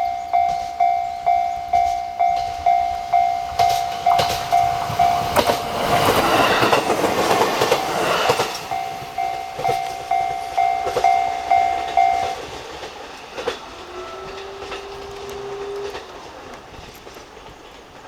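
Japanese level-crossing warning bell ringing in an even ding-ding, just under two strikes a second, while a Shinano Railway SR1 series electric train passes over the crossing with a rush of wheel clatter about five to nine seconds in. The bell stops about twelve seconds in, then comes a click and a short rising hum, and the train's sound fades away.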